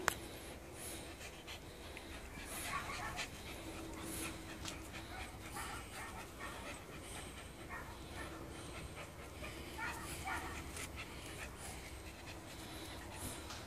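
Šarplaninac (Sharr mountain dog) puppies panting and scuffling as they play-fight, with short scratchy rustles throughout and a sharp click at the very start.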